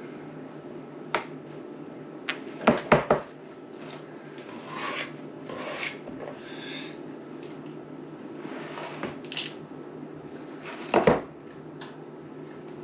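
A metal scoop scraping brownie batter from a mixing bowl and knocking against the bowl and the muffin tin. There is a loud cluster of clinks about three seconds in and another loud pair near eleven seconds, with softer scraping between, over a steady low hum.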